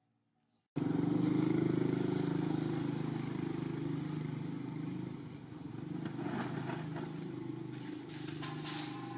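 A motorcycle engine running steadily. It cuts in abruptly just under a second in and slowly grows quieter.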